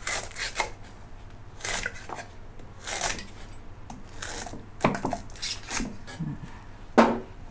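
Chef's knife slicing through lemongrass stalks on a wooden cutting board: a crisp cut ending in a knock on the board, roughly once a second at an uneven pace, about eight strokes.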